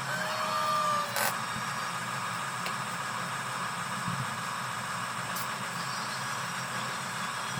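Small electric drive motors and gearing of a radio-controlled model construction vehicle running with a steady mechanical whir. A short tone near the start ends in a sharp click about a second in.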